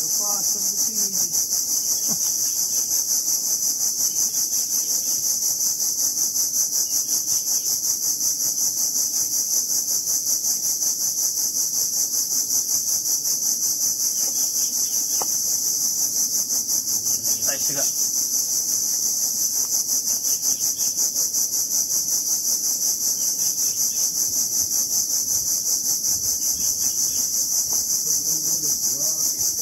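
Loud, continuous high-pitched buzz of cicadas, pulsing rapidly and evenly without a break.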